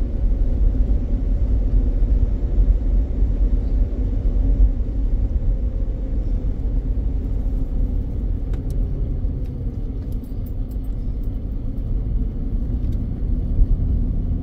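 Car driving at low speed: a steady low rumble of engine and tyre noise, with a faint hum that slowly drops in pitch about halfway through. A few faint clicks come in the second half.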